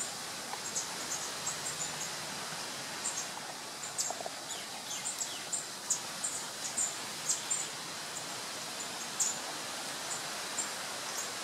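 Many small birds chirping: a steady scatter of short, high chirps over a constant outdoor hiss.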